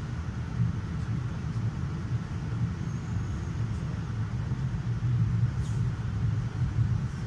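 Steady low rumble of moving vehicles, even throughout with no distinct events.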